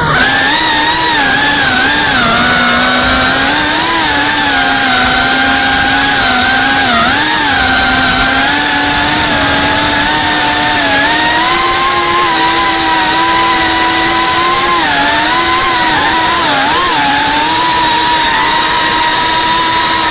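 Cinewhoop FPV drone's motors and ducted propellers buzzing in flight, a steady high whine whose pitch dips and rises briefly a few times as the throttle changes.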